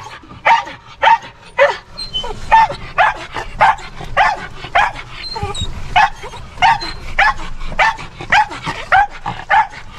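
A dog barking over and over, about two barks a second, in excitement as its golf cart ride gets under way.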